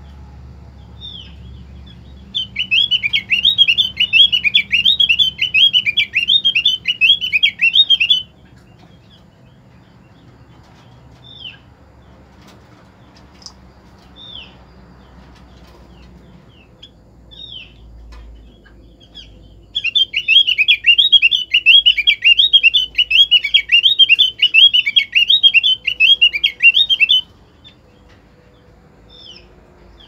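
Female opior (Javan grey-throated white-eye) calling: two long, loud, rapid chattering trills of about six seconds each, in the high register, with single short falling chips in the gaps. It is the call that draws male opiors to answer.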